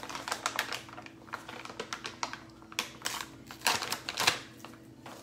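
Crinkling and crackling of a stiff plastic pouch of powdered sweetener as it is handled and pulled at to get it open, in irregular crackles, loudest a little before four seconds in.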